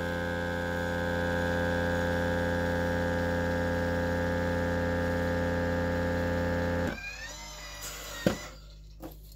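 Old countertop vacuum food sealer's pump running with a steady, loud hum as it draws the air out of a small mason jar through its jar-sealer attachment. It cuts off about seven seconds in, followed by a short rising whine and a click. This cycle leaves the jar lid unsealed.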